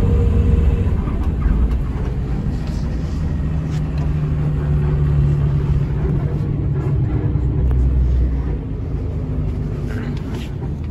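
Hino RG230K coach under way, its engine and running gear giving a steady low rumble and hum. The engine note holds steady for a few seconds and eases off a little near the end.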